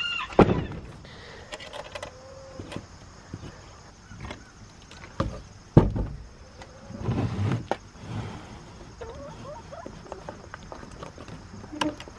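Knocks and thumps of handling a wooden chicken tractor and coop, the two loudest just after the start and just before six seconds in, with a rustling stretch about seven seconds in. Faint hen clucks come in the second half.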